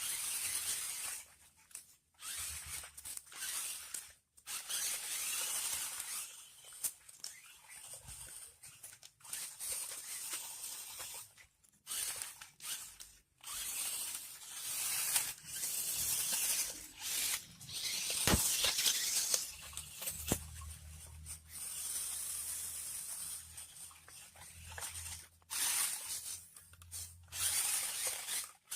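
Off-road remote-control car driving over rough ground: bursts of scrabbling, hissing tyre and gravel noise, each a second or two long, broken by sudden short gaps.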